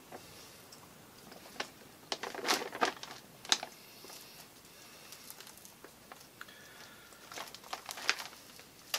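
Crinkling and scattered sharp crackles from a frozen pack of ballyhoo bait being worked by hand to break one fish loose. The crackles come in two clusters, about two to three and a half seconds in and again near the end.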